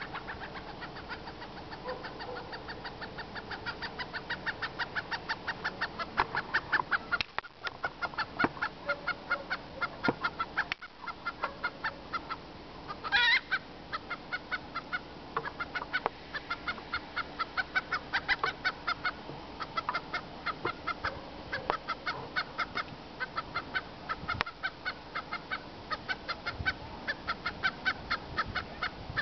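Domestic hen clucking in a steady run of short clucks, about four or five a second, with one louder, higher cry about thirteen seconds in.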